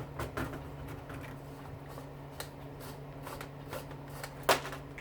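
Light clicks and rattles of small dishwasher parts being handled and pulled apart, with one sharper click about four and a half seconds in, over a steady low hum.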